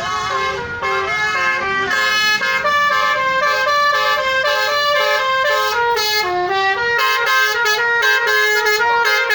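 Bus 'telolet' musical horn playing a tune without a break: a quick run of stepped notes, several pitches sounding together.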